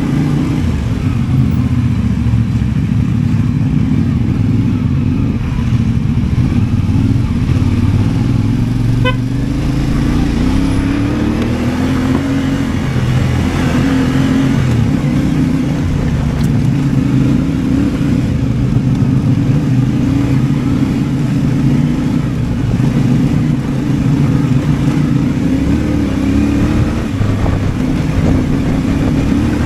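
CFMOTO 450MT's parallel-twin engine running steadily while riding, its pitch rising and falling with the throttle, most clearly about a third of the way through.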